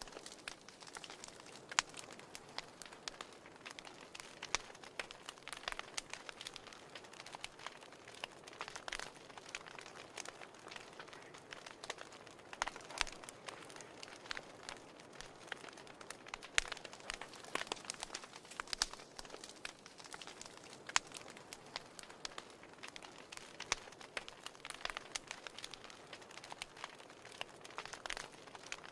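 Wood fire burning in a fireplace, crackling steadily, with irregular sharp pops and snaps over a soft hiss.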